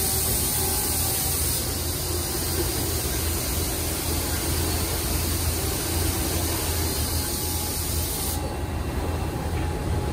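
Mazak QTN-200 CNC turning center running a program, its spindle and chuck turning with a steady low hum and a hiss that drops away near the end.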